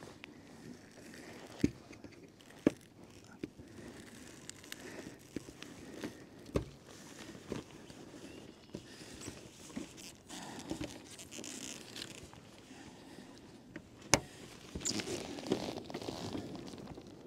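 Handling noise from a plastic suction-cup tie-down being worked by hand on a car roof: a few sharp, separate clicks and knocks, with rustling of the nylon cover fabric that grows busier near the end.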